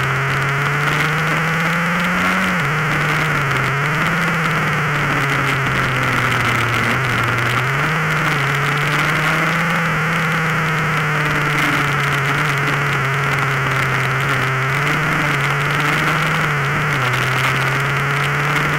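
Honda NSR150RR's single-cylinder two-stroke engine running at high revs under heavy wind noise. Its pitch climbs and falls, with sharp drops about three, seven and seventeen seconds in as it changes gear.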